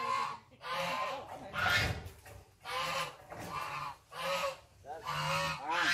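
Domestic geese honking over and over, in a run of loud separate calls about one to two a second.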